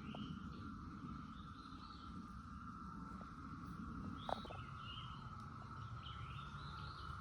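Cicada chorus droning steadily at one even pitch, with short bird chirps repeating above it and a low rumble underneath. One sharp click a little over four seconds in.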